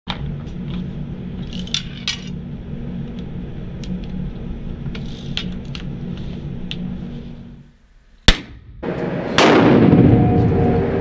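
Steady low hum with scattered metallic clicks while a ballistic test barrel is handled on its mount. After a short lull, a single sharp gunshot about eight seconds in, followed by a loud, sustained rushing noise over the last couple of seconds.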